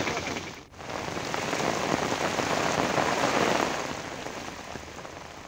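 Heavy rain pouring onto flooded ground, a steady hiss. It drops out for an instant just under a second in and grows gradually quieter over the last couple of seconds.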